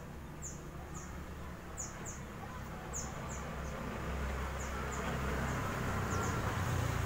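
A small bird chirping again and again in short, high, downward-sweeping chirps, often in pairs, over a low rumble that grows louder from about four seconds in.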